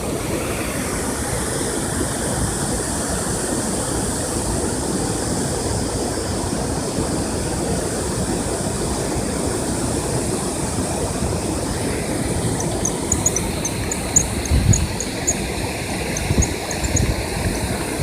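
Steady rushing roar of water pouring through the dam. From about two-thirds in it is joined by a run of faint high chirps and a few low wind bumps on the microphone.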